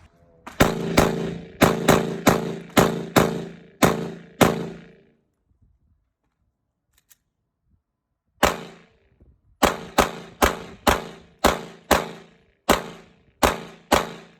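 Two strings of single gunshots from a firearm at a shooting range, fired at a steady pace of about two a second: about nine shots, a pause of about three seconds, then about ten more. Each shot rings on briefly after it.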